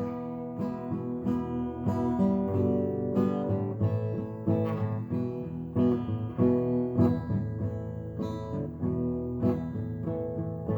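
Acoustic guitar strummed in steady chords, an instrumental break between sung lines.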